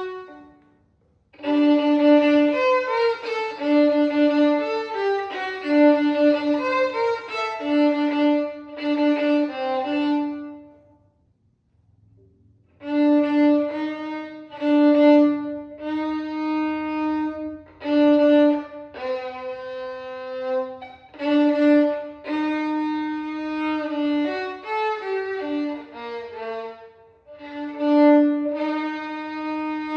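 A violin playing a flowing melody of held and quick notes over a repeated low note, stopping for about two seconds midway before the phrase resumes.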